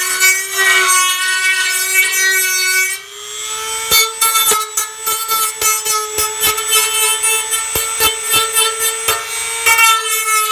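Dremel rotary tool spinning a sanding drum against the edge of a steel oil pan's flange, smoothing rough metal edges: a steady high whine that steps up slightly in pitch about three seconds in, with an uneven rasping chatter from about four seconds where the drum bites the steel.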